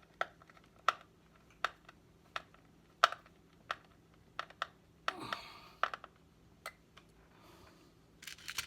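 About a dozen sharp plastic clicks, spaced roughly half a second to a second apart, as the buttons of a Numark Mixdeck DJ controller are pressed to check they are seated after a repair; a brief scraping rustle of handling about five seconds in.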